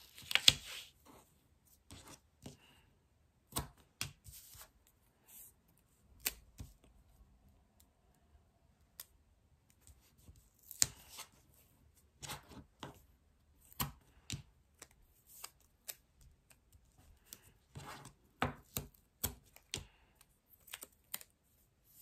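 Double-sided tape pulled from its roll and pressed onto a white paper card blank, with scattered sharp clicks, taps and short rustles of tape and card against the table.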